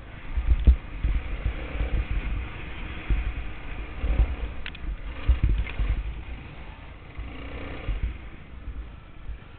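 Suzuki DR350 dirt bike's single-cylinder four-stroke engine running while riding a rough dirt trail, with wind buffeting the bike-mounted microphone and a few knocks from the bumps.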